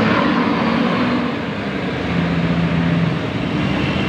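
Large bus passing close by: a loud, steady roar of engine and road noise.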